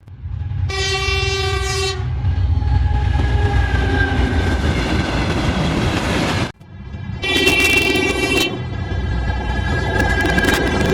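Steam locomotive whistle blowing one short, steady blast over the low rumble and hiss of a running train. After an abrupt cut it blows again, a second edited version of the same whistle sound effect, again over the train's rumble, with rapid ticking starting near the end.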